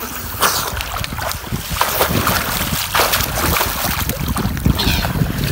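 Pond water splashing and sloshing as a swimmer reaches the concrete edge and grips it, with wind rumbling on the microphone.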